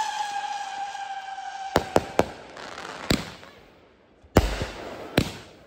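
Bright Star Wolf Warrior 500-gram firework cake firing. A whistling tail falls slowly in pitch and fades out in the first two seconds, under a run of sharp bangs, then two louder bangs near the end.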